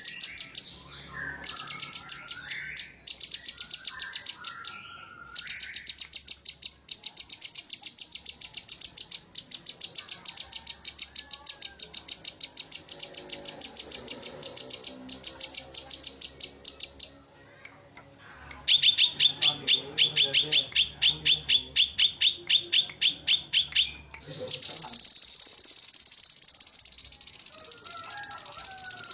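Songbirds from a cucak jenggot and kinoi tutoring recording singing: long, fast, ticking high trills, with a few lower slurred whistles near the start. A lower trill comes in about two-thirds of the way through, and a continuous high buzzing trill follows near the end.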